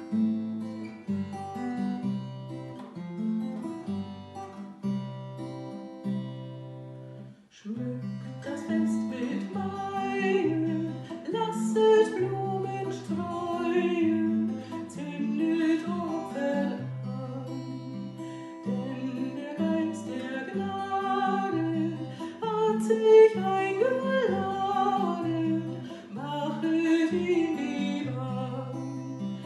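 Acoustic guitar played alone, a steady accompaniment with a repeating bass note, then after a short introduction a woman's voice joins, singing a song to the guitar.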